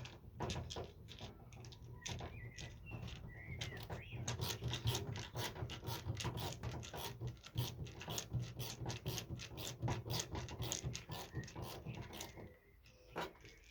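Rapid mechanical clicking from a screwdriver being turned in short strokes to tighten the retaining screw that clamps a Ford Fiesta Mk7 door handle and lock in the door. The clicking is ratchet-like and stops near the end as the screw comes tight.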